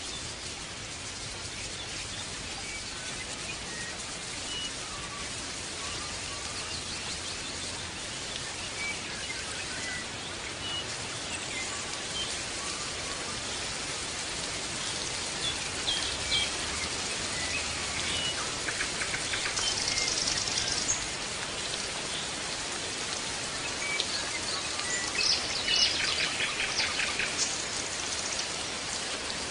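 European goldfinch singing: scattered short twittering notes with louder buzzy trills about two-thirds of the way in and again near the end, over a steady hiss.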